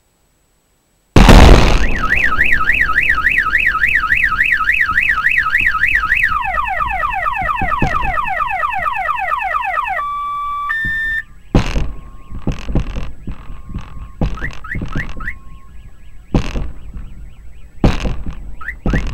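A sudden loud boom about a second in, the shockwave from the 2013 Chelyabinsk meteor's airburst, sets off car alarms. First comes a fast warbling siren, then a repeated falling whoop, then steady beeps, while more sharp bangs follow one after another through the rest.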